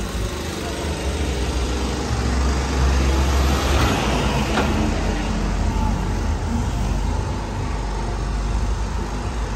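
Road traffic passing close by: engine and tyre noise of a heavy truck and cars, a steady low drone that swells a few seconds in as the truck goes past.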